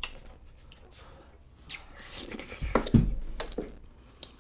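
Close-up mouth sounds of someone taking a spoonful of sujebi (Korean hand-pulled dough soup) with kimchi and chewing it, with small clicks and a louder stretch of mouth noise and a low thump about three seconds in.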